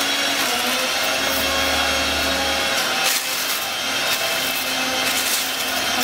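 Cardboard and plastic air-cushion packing rubbing and rustling as they are handled inside a shipping box, a steady scraping noise.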